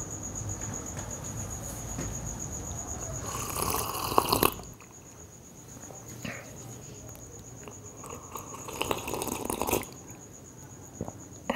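A cricket trilling steadily, a fast pulsing high chirr that cuts off about halfway through, with a few short bursts of hissing noise about four seconds and nine seconds in.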